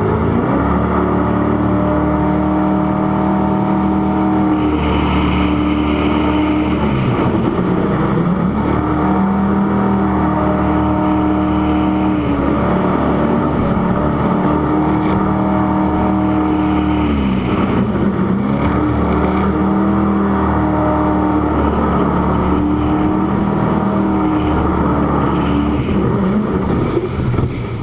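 Jet sprint boat engine running hard at high revs. Its pitch dips briefly and climbs back about five times between long stretches at full throttle.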